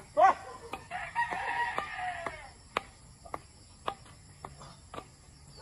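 A short, loud call at the very start, then a rooster crowing once: a single pitched crow of about a second and a half, beginning about a second in. Faint sharp ticks and a steady high insect chorus run underneath.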